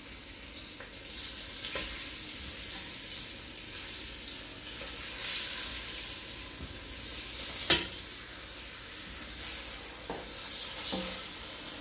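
Flour-dredged beef short ribs searing in hot olive oil in a pot: a steady sizzle, with tongs moving the meat around. One sharp knock about two-thirds of the way through, likely the tongs striking the pot.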